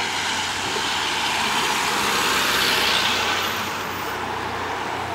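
A motor vehicle driving past, its engine and tyre noise swelling to a peak about three seconds in and then fading.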